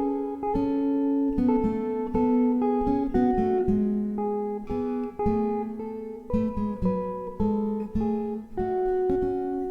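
Acoustic guitar playing a slow instrumental passage, plucked notes and chords struck about once or twice a second and left to ring.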